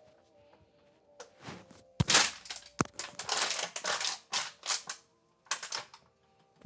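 Close rustling and handling noise from a phone being moved about, in irregular bursts, with two sharp knocks about two seconds in and just under three seconds in.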